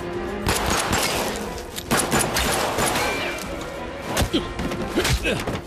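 Staged fight sound effects: hard punch and body hits with swishing whooshes, over dramatic background music. The sharpest hits come about two seconds in, then twice more near the end.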